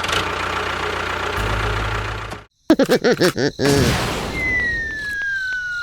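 Edited sound effects: a noisy rumble that cuts off suddenly about two and a half seconds in. A quick run of bouncing, cartoon-like chirps follows, then a long falling whistle.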